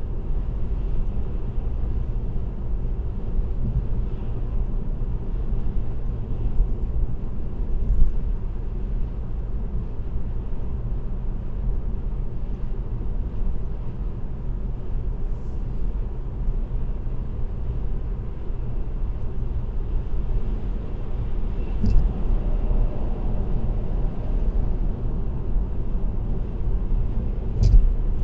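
Car cruising on an expressway, heard from inside the cabin: a steady low rumble of tyre and engine noise. Three brief thumps stand out: one about eight seconds in, one about twenty-two seconds in, and one near the end.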